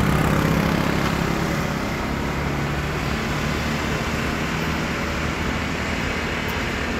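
Motor vehicle engine and road traffic noise, a steady rumble with a low engine hum that is strongest in the first second or two and then fades.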